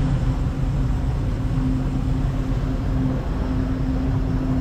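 Boat engine running at a steady speed while underway: an even low hum at constant pitch with a rushing noise over it.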